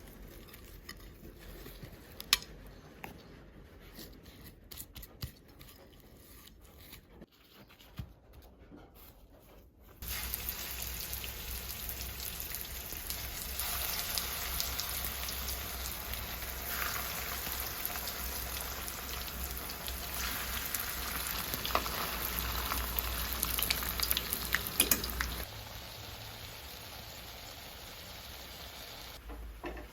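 Food sizzling in hot oil in a pan, starting suddenly about ten seconds in and cutting off about fifteen seconds later. Before it, a few light clicks and knocks.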